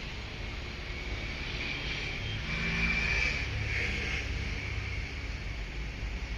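A motor vehicle passing, with a low rumble and a faint high whine that grow louder toward the middle and then fade away.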